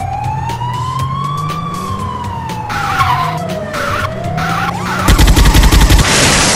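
Siren wailing slowly up and down, like a police car's. About five seconds in it gives way to a loud crackling electric zap and a bright hiss, a cartoon lightning-burst sound effect.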